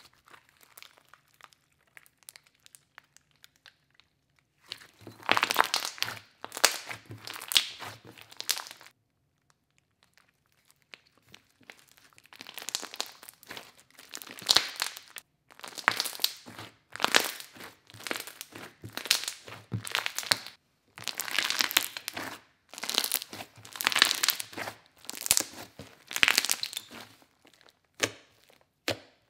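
Thick pink slime being squeezed, stretched and pressed by hand, making squishy, crinkly sounds. The first few seconds hold only faint clicks; then the handling sounds come in bursts, roughly one a second.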